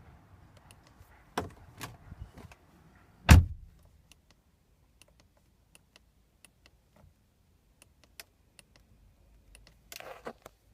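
A car door shuts with a heavy thud about three seconds in, after a few lighter clicks and knocks. Faint, irregular ticking follows, with a short rustle near the end.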